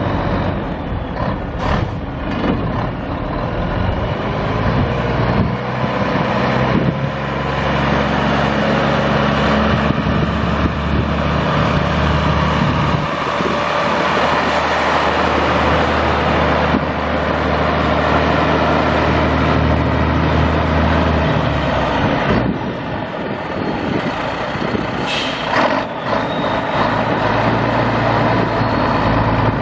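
1972 Mack RS785 truck's six-cylinder turbo diesel engine running, its note shifting up and down in steps several times. Near the end there is a short hiss of air.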